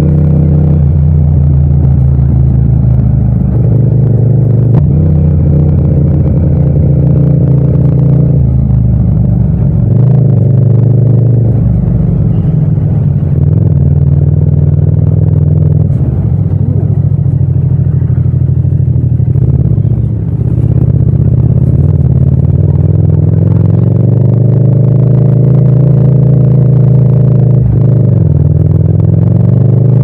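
Parallel-twin motorcycle engine under way, its pitch climbing under throttle and dropping back at gear changes or roll-offs several times. The sound is close-up and without wind noise.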